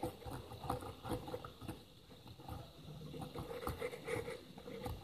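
Cotton swab wet with alcohol scrubbing over a chip's soldered pins on a circuit board: faint, irregular scratching and rubbing as the joints are cleaned after soldering.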